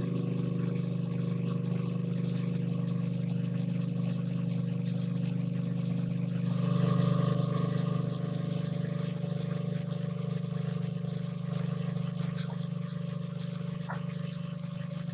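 A small engine running steadily at a constant speed. Its tone shifts and it briefly gets louder a little under halfway through.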